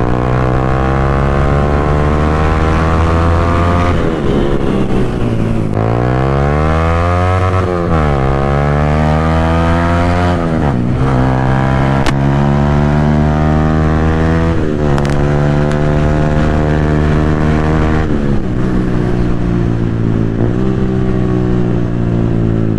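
Yamaha R15's single-cylinder engine through a loud aftermarket Akrapovic exhaust, accelerating on the road: its pitch climbs steadily through each gear and drops sharply at each of several gear changes.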